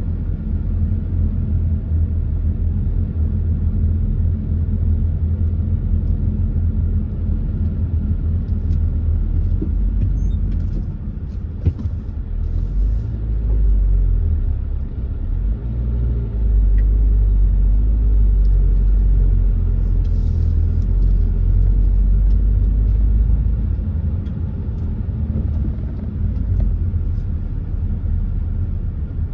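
A car driving on the road, heard from inside the cabin: a steady low engine and road rumble that gets a little louder for a stretch past the middle.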